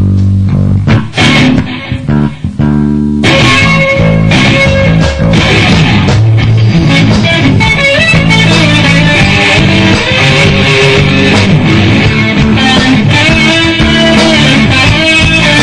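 Instrumental break of a funk rock song: bass guitar and drums play a stop-start figure for about three seconds, then the full band comes in, with an electric guitar playing a bending lead line over bass and drums.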